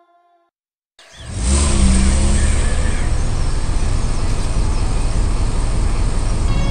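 A loud, steady motor-vehicle rumble that starts abruptly about a second in, after a brief silence.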